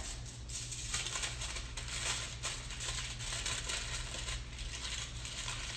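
Aluminium foil crinkling and crackling in irregular bursts as a foil-wrapped block of pastry dough is folded and pressed by hand.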